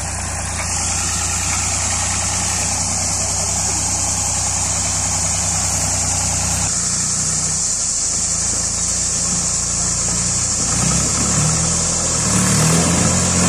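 Massey Ferguson tractor's diesel engine running steadily at low revs, then revving higher and unevenly over the last few seconds as the tractor pulls through the creek water.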